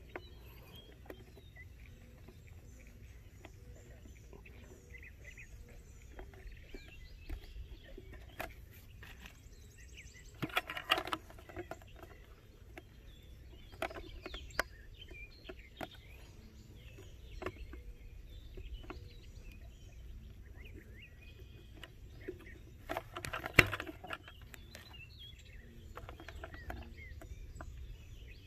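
Red plastic chicken-waterer nipples being screwed by hand into a plastic bucket: scattered small plastic clicks and creaks, with two louder bouts of handling noise, about eleven and twenty-three seconds in. Under it a low steady background rumble and faint bird chirps.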